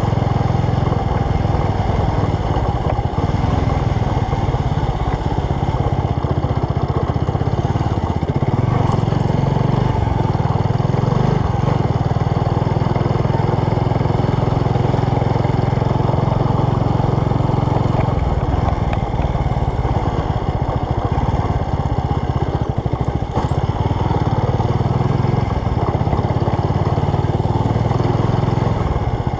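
Motorcycle engine running steadily as the bike rides along at low speed.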